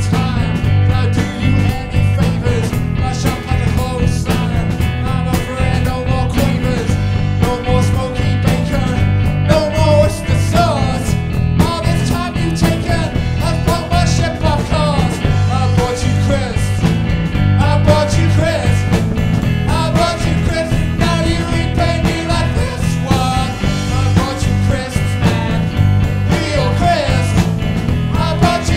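Live rock band playing loudly and without a break: electric guitar, bass guitar, keyboard and a drum kit.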